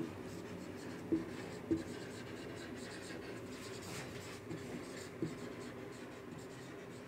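Marker pen writing on a whiteboard: quiet rubbing of the felt tip as letters are formed, with a few short, slightly louder strokes.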